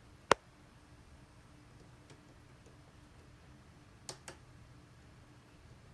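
Clicks of the ASUS PA32UC monitor's menu control being pressed while stepping through the on-screen menu. There is one sharp click about a third of a second in, then two fainter clicks in quick succession about four seconds in.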